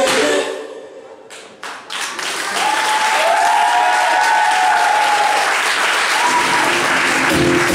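Music stops and an audience bursts into applause that builds and holds, with a few voices calling out over the clapping. New music with a beat starts near the end.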